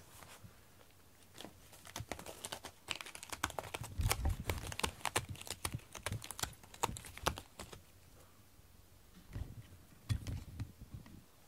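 Crackling rustles and soft bumps as a cat rubs its fur against the camera and its microphone, densest in the middle, then a few more bumps near the end.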